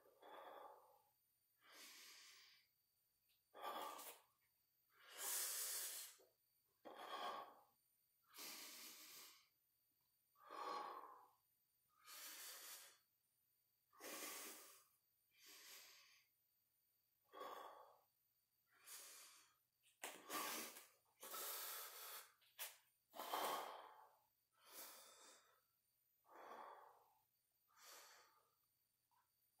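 A man breathing hard and rhythmically from the strain of holding a plank, each breath in and out coming as a separate noisy rush, roughly one every second and a half.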